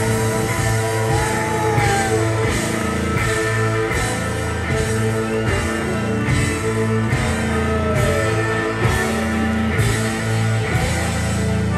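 Live electric blues-rock band playing: electric guitars, fiddle, bass and drums over a steady beat, with sliding bent notes above. A harmonica is played into a hand-held microphone.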